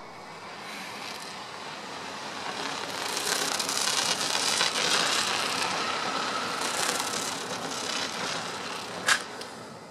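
A vehicle passing: a broad rushing noise that swells to a peak about halfway through and then fades away. A single sharp click about nine seconds in.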